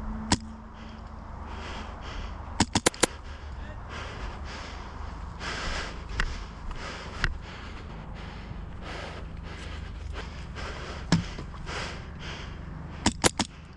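Airsoft gunfire: sharp cracking shots, some single and some in quick strings of three or four, typical of rapid semi-auto fire from an HPA airsoft rifle.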